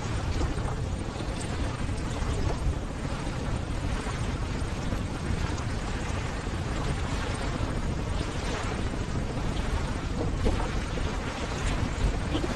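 Ocean surf: a steady low rumble of breaking waves, swelling and easing every few seconds.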